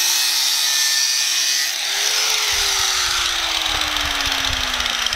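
Handheld angle grinder grinding a metal exhaust fitting: a steady, loud hiss of the disc on metal. The motor's hum rises briefly about two seconds in, then slowly drops in pitch.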